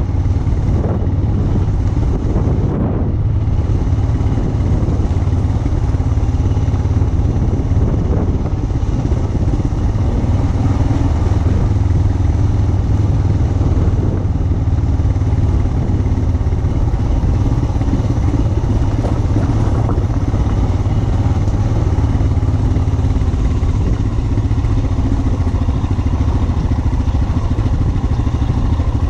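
Royal Enfield Himalayan 411's single-cylinder engine running steadily while the motorcycle is ridden.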